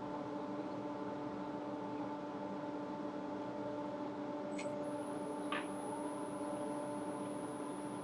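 Wood lathe motor running steadily with no cut being made, a constant hum with a couple of faint clicks about halfway through.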